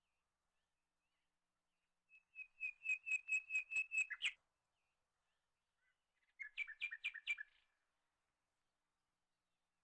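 A bird singing two short phrases of quick repeated chirps: first a run of about ten high notes, growing louder, lasting a little over two seconds, then a shorter run of about a second.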